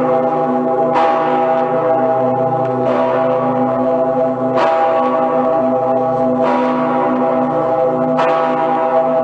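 Cologne Cathedral's St. Peter's Bell (the Petersglocke) swinging alone. Its clapper strikes about every two seconds, alternately stronger and weaker, over a continuous deep hum.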